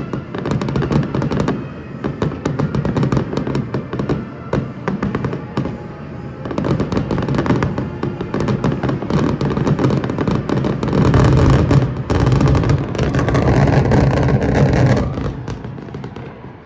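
Fireworks finale: a dense barrage of rapid bangs and crackles, heaviest about eleven to fifteen seconds in, then dying away near the end, with music playing underneath.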